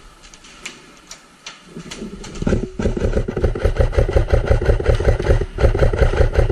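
Airsoft rifle firing full-auto bursts: a rapid, even rattle starting about two and a half seconds in, broken twice briefly, and cutting off suddenly near the end. A few sharp clicks come before it.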